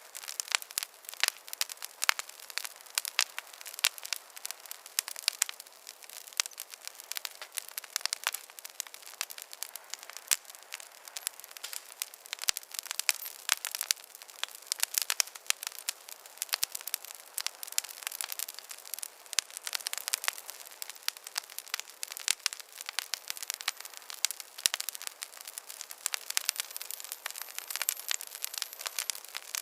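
Wood campfire crackling steadily, with many irregular sharp pops and snaps over a faint hiss.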